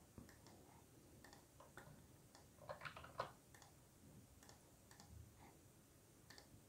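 Near silence with a few scattered faint computer mouse clicks.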